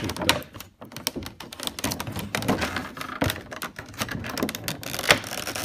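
Clear plastic blister packaging crinkling and crackling as it is handled and pulled apart: a dense, irregular run of clicks and pops.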